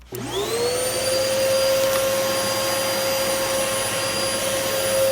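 Hoover Pet Max Complete bagless upright vacuum cleaner switched on: the motor spins up with a rising whine in the first second, then runs loud and steady with a constant whine over the rush of air.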